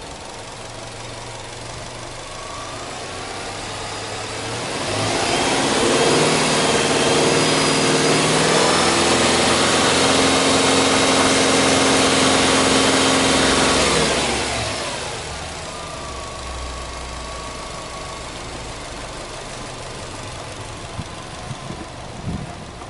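Subaru Legacy 2.0GT's turbocharged EJ20 flat-four, heard at the open engine bay, idling, then revved up over a couple of seconds and held at raised revs for about eight seconds before dropping back to a steady idle. Some handling noise near the end.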